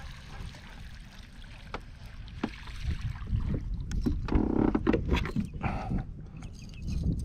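A hooked bass splashing and thrashing at the surface beside the kayak as it is reeled in, with a run of sharp splashes and knocks in the middle, loudest a little past the midpoint.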